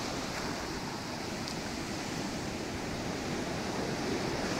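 Ocean waves breaking over rocks and washing up a sandy beach: a steady rush of surf.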